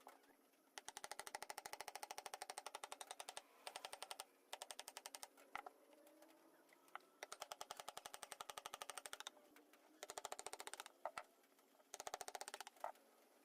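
Rapid runs of sharp clicks, about fifteen a second, in several bursts of one to three seconds, with a few single clicks in between.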